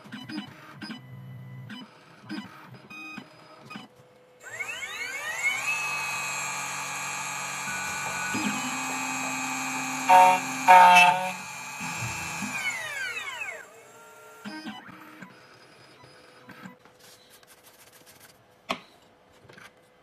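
CNC key cutting machine making a single-depth cut: its end-mill spindle spins up with a rising whine about four seconds in and runs steadily. The cutter bites into the metal key blade twice in quick succession just after ten seconds, then the spindle winds down with a falling whine around thirteen seconds. Short clicks and brief motor whirs of the machine positioning come before and after.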